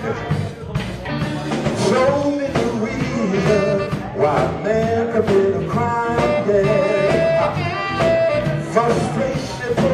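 Live blues band playing an instrumental passage on electric guitars, bass and drums, with a lead line that bends and wavers in pitch.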